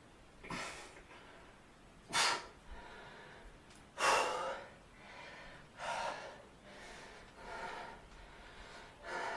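A man's heavy, forceful breaths through the mouth, about six of them at intervals of one to two seconds, the strongest two and four seconds in: the strain of holding bodybuilding poses.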